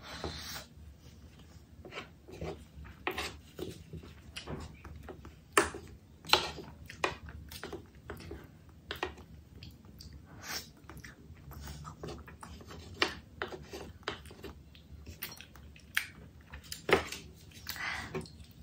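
Close-miked eating: irregular wet chewing and crunching clicks, a few much louder than the rest, with occasional taps of utensils on a plate.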